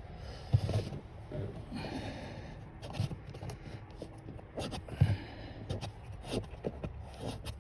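Scraping and rustling of plastic trim being handled under a car's dashboard, with a few dull knocks; the loudest come about half a second, three seconds and five seconds in, as the footwell trim panel is fitted back and its second screw is driven in.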